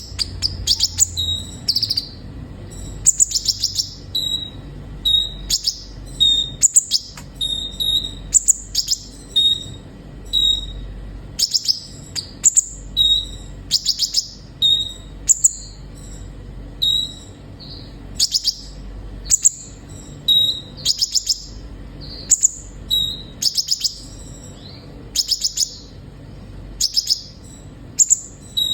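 Kolibri ninja sunbird singing: short, high-pitched, rapid twittering phrases repeated about once a second, some ending in a brief clear note. A faint low hum runs underneath.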